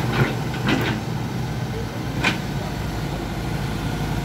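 Heavy diesel engine running steadily. Three short sharp noises sound over it, the loudest a little over two seconds in.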